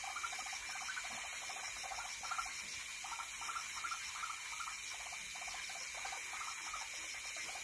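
Steady countryside insect drone, a high hiss with a thin steady whine, with short chirping calls repeating every half second or so.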